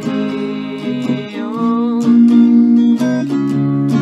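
Red solid-body electric guitar strumming ringing chords that change about once a second, under a young woman's singing.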